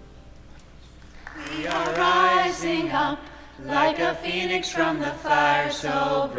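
A group of voices singing a chant together, starting about a second in after a short lull, with a low line of voices moving in steps beneath the melody.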